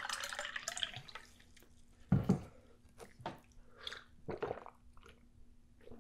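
Water poured from a plastic pitcher into a glass with ice, trailing off about a second in. A thud about two seconds in, then a run of gulps as a person drinks from the glass.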